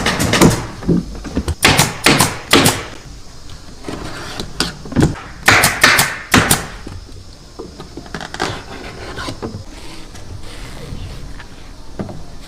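Sharp mechanical clacks in quick runs of several strokes, four such runs in the first seven seconds, then lighter scattered knocks and clatter.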